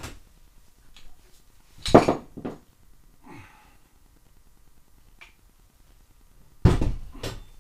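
Loose metal ATV drive-train parts being handled and set down: scattered clicks and knocks, with two louder metal clanks about two seconds in and near the end.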